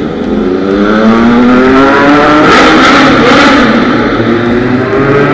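Motorcycle engine accelerating hard, its pitch rising steadily for about two and a half seconds, then running loud and steady.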